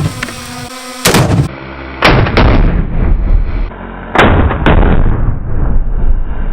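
Tannerite exploding target going off under rifle fire: about five loud booms in a few seconds, some as a sharp crack closely followed by a second boom, with a deep rolling rumble between them.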